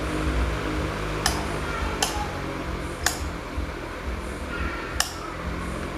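Restored electric standing fan running with new motor bushings fitted: a steady motor hum under the rush of air from the spinning blades. Four sharp ticks come at uneven intervals.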